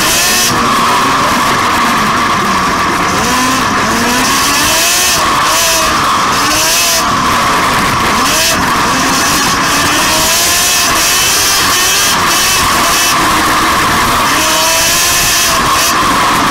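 Racing ride-on lawnmower engine heard close up from on board, revving up and down over and over as it is driven hard.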